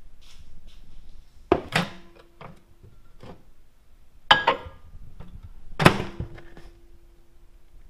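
Small countertop microwave's door clicking open, a glass Pyrex measuring cup set down inside with a sharp clink, then the door shut with a loud thunk near the end.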